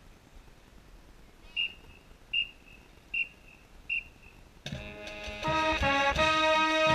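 Four short, evenly spaced high beeps count off the beat, then a marching band's brass section, mellophone close by, comes in loudly playing held chords about two-thirds of the way through.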